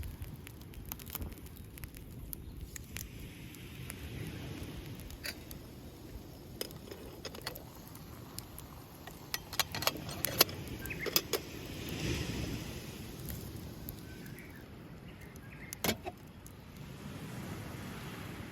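Scattered sharp clicks and clinks, busiest about ten seconds in, over a low steady wash of surf.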